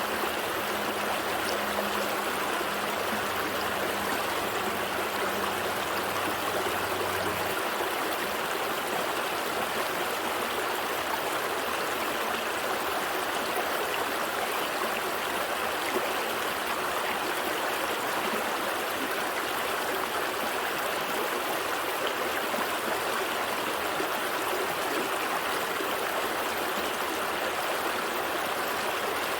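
Gentle stream flowing steadily, an even rush of running water. A faint low hum underneath stops about seven seconds in.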